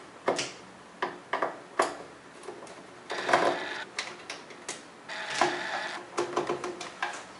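Screws being worked out of the plastic back casing of an LG Flatron LCD monitor: scattered clicks and small knocks of the screwdriver and screws on the plastic, with two short scraping stretches, about three seconds in and about five and a half seconds in.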